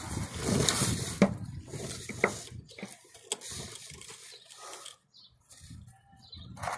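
Handling noise under a car: a shop rag rubbing and wiping, with a few sharp clicks in the first three seconds. It goes quieter for a couple of seconds, and the rustling picks up again near the end.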